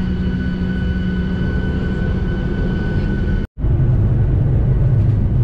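Steady drone of a jet airliner's engines with a faint constant whine above it. About three and a half seconds in, a sudden cut gives way to a louder, deeper engine drone.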